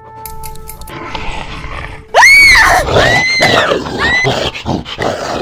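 A rough, growling snarl with three loud, high shrieking cries over it, each rising sharply and falling away; the first, about two seconds in, is the loudest. Before it, a faint steady electronic tone with a few clicks cuts off about a second in.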